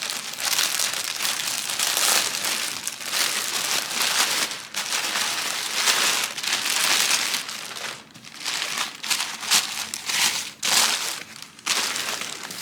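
Packing paper and plastic wrapping crinkling and rustling as they are handled and pulled away, in uneven bursts with a couple of short lulls.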